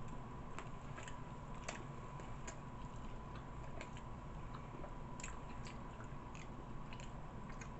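Close-up chewing of a toasted cheesesteak sandwich: quiet, irregular wet mouth clicks and smacks.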